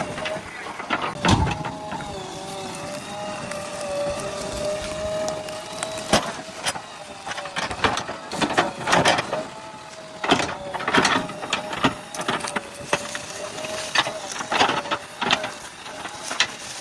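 JCB backhoe loader at work: a steady machine whine holding one pitch, broken by many sharp knocks and cracks, thickest in the middle and again near the end.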